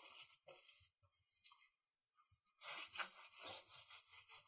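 Faint rustling and rubbing of a paper towel being wiped and patted over the surface of a raw beef brisket to dry it, a little louder about three seconds in.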